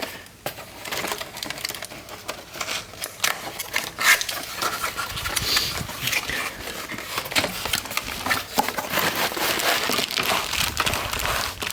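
Packaging rustling and crinkling with scattered clicks and light knocks as a box of small table-saw accessories is unpacked by hand.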